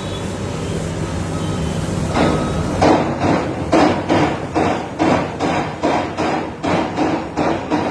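Metal spatula chopping and striking on a flat iron griddle, an even clatter about three strikes a second, beginning about two seconds in, as tomato and egg are worked into a gravy. A steady low rumble runs underneath.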